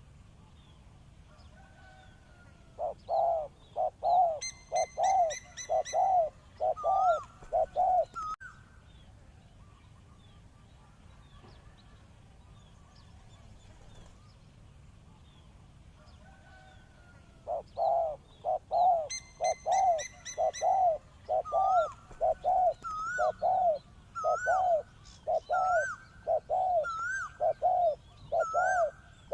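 Spotted dove cooing in two bouts of short, evenly spaced coos, about two a second, with a smaller bird chirping higher over the second half of each bout.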